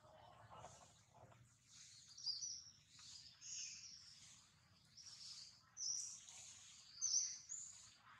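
Birds chirping: short, high calls that come every second or two, over a faint low background hum.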